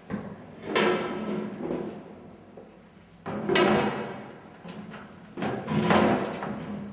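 Three loud bumps and scrapes about two and a half seconds apart, the last as a glass door is pushed open.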